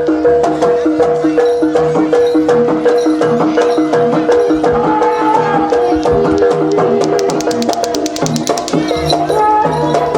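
Javanese jaranan music: a repeating pattern of struck pitched tones over steady drumming. A wavering melody line comes in about halfway and again near the end, and there is a quick run of sharp strikes shortly before the end.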